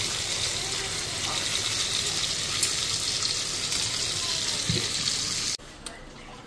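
Steaks sizzling in hot oil in a frying pan, a steady hiss that cuts off suddenly near the end.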